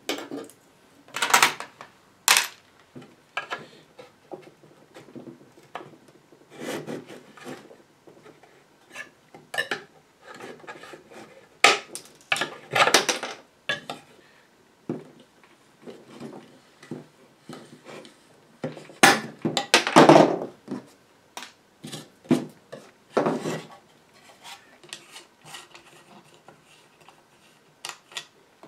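Irregular clinks, knocks and rubbing as an antique amplifier's wooden cabinet is taken apart by hand on a tabletop: metal hinges, screws and wooden panels handled and set down. The loudest knocks come about halfway through and again about two thirds of the way in.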